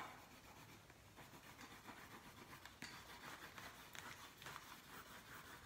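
Faint scratching of a wax crayon on drawing paper, a run of short strokes colouring in.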